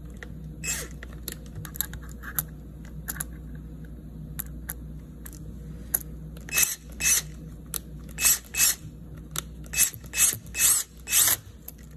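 Ratcheting driver clicking as it tightens a worm-drive hose clamp over a rubber fuel hose on a barbed AN fitting. Faint ticks at first, then louder sharp ratchet clicks from about halfway, roughly two a second, as the clamp is cinched tight.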